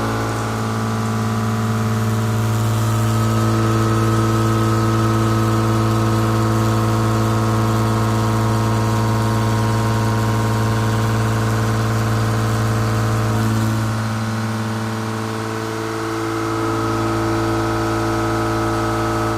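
Milling machine running with its square shoulder milling cutter: a steady, loud mechanical hum with a strong low tone and a stack of steady overtones, easing slightly a little after the middle.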